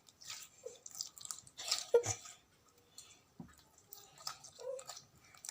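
Slime being squeezed and pulled by hand, giving scattered short wet clicks and pops, the loudest about two seconds in.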